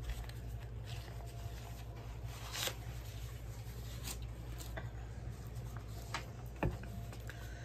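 Faint handling noises as packaged items are picked up and moved: paper rustling and a few light taps and clicks, over a steady low hum.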